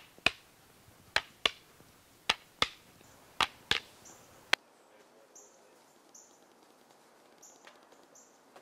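Eskrima sticks striking each other in a partner drill: sharp clacks in quick pairs, about one pair a second, stopping about four and a half seconds in. After that only faint short high chirps remain.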